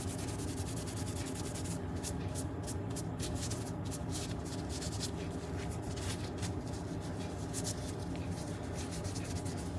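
Cloth rubbing on a small stained wooden handle, a run of light scratchy strokes as excess stain is wiped off, over a steady electrical hum.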